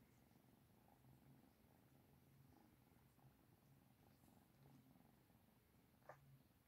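Cat purring faintly, a low rumble that swells and eases in a slow rhythm with the cat's breathing. A brief click about six seconds in.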